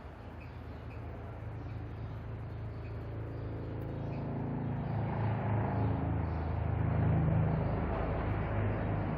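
A motor vehicle's engine running and growing steadily louder as it approaches, loudest about seven seconds in.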